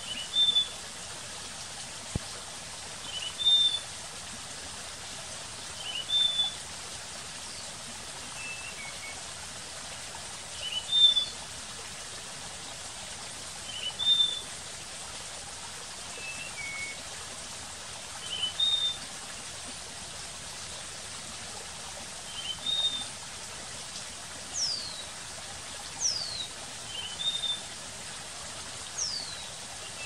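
Slaty-backed nightingale-thrush singing: short phrases of a few high, clear notes, repeated every two to three seconds, over a steady background hiss.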